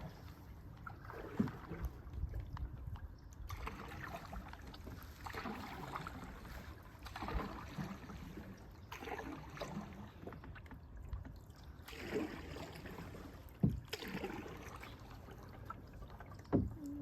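Paddles stroking through water, a splashy swish every second or two as the boat is paddled along, with a couple of sharp knocks near the end.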